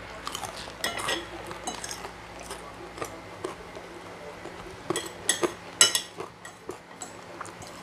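Metal spoons and forks clinking and scraping against white ceramic plates as two people eat, with scattered sharp clinks that come thickest and loudest about five to six seconds in.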